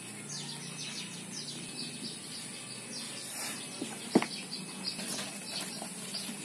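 Kittens scuffling in a cardboard box: claws scrabbling and rustling on the cardboard, with one sharp knock about four seconds in. Short high chirps sound throughout.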